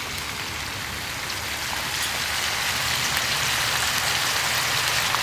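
Iguana meat, tomato, onion and sweet pepper sizzling in a frying pan on a portable gas stove: a steady frying hiss that grows a little louder about two seconds in.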